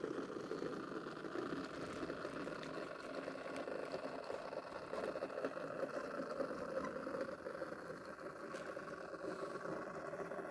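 Liliput H0-scale BR 45 model steam locomotive running along the track: the steady whir of its small electric motor and gearing with the rattle of wheels on rail. The model has a drive fault in which the tender wheels slip.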